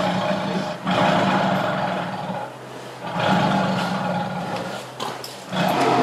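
Angry tiger roaring: a string of loud, rough roars, each starting suddenly and tailing off over about two seconds, a new one every two to three seconds.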